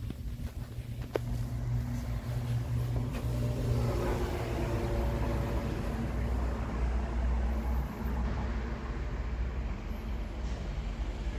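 A low, steady engine-like hum that grows louder about four seconds in, with one sharp click about a second in.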